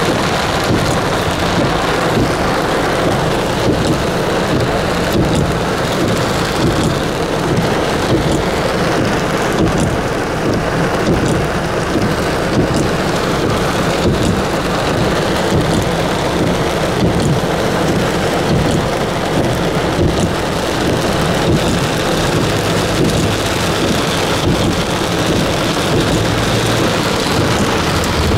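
Heavy rain pouring down in a steady, dense downpour.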